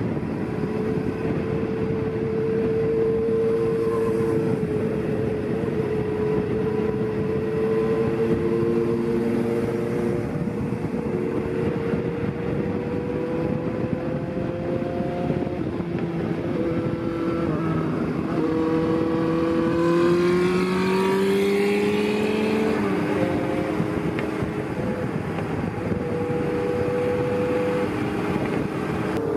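Several Honda CB400Four motorcycles running together at cruising speed, their air-cooled inline-four engines on short aftermarket mufflers, with road and wind noise. The engine notes drift up and down, with a brief rise in pitch about twenty seconds in.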